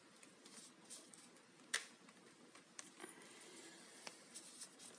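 Near silence with a few faint, sharp clicks and taps of laptop parts being handled during reassembly, the clearest about two seconds in.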